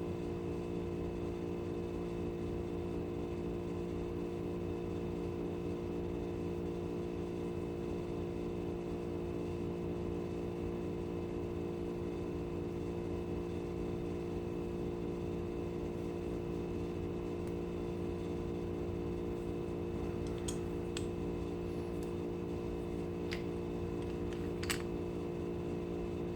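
A steady background hum, with a few faint clicks about three-quarters of the way through.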